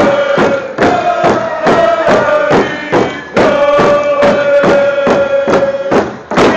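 Group of voices chanting a Nuu-chah-nulth song in long held notes over a steady, evenly spaced hand-drum beat.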